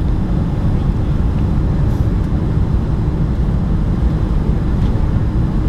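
Steady low cabin rumble of a Boeing 757-200 on final approach with its flaps extended: engine and airflow noise heard from inside the cabin over the wing.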